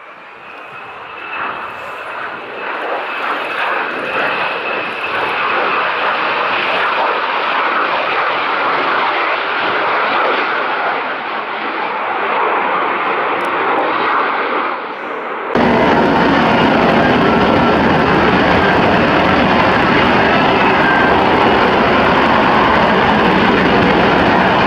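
Jet noise from an F-35B Lightning II flying slowly in STOVL mode with its lift-fan door open. It grows louder as the jet comes nearer, jumps suddenly louder about fifteen seconds in, and then holds steady.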